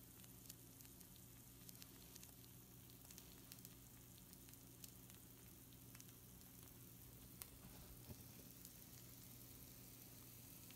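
Pizza rolls on a baking tray sizzling faintly, with scattered small pops and crackles. A steady low hum sits underneath.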